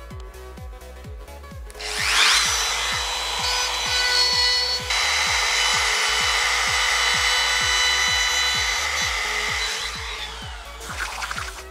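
An electric power tool spins up about two seconds in and works the wood or cured resin with a steady whine over a rasping grind, then winds down shortly before the end. Background music with a steady beat plays throughout.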